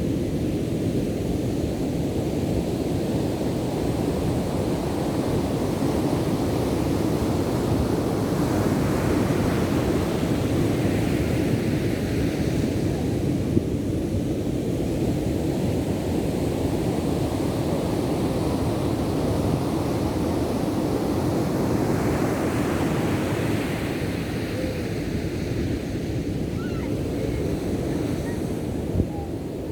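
Ocean surf: a continuous rush of waves that swells twice, about eight seconds in and again past twenty seconds, as waves break, with wind buffeting the microphone.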